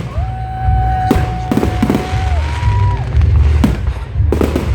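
Aerial fireworks exploding in an irregular series of sharp bangs, about seven in under five seconds, over a continuous low rumble.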